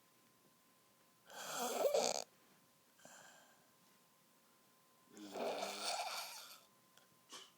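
A woman snoring: two long, loud snores about four seconds apart, with a fainter breath between them and a short click near the end.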